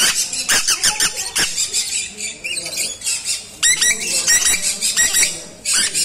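Caged pet parrots calling: rapid runs of sharp, high-pitched chirps and squawks in clusters. A lull comes around two seconds in, and a denser burst of calls follows at about three and a half seconds.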